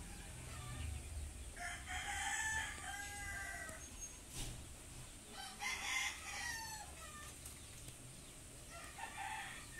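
Rooster crowing twice in long crows, with a shorter call near the end.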